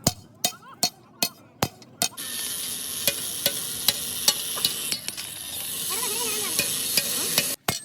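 Hammer blows on metal at a steady beat of about two or three a second. From about two seconds in a loud steady hiss runs under them and cuts off suddenly near the end.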